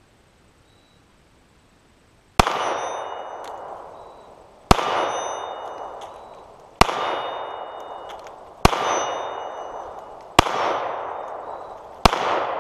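Glock 43 9mm pistol fired six times in slow, aimed succession, about two seconds between shots. Each shot leaves a long ringing tail that dies away before the next.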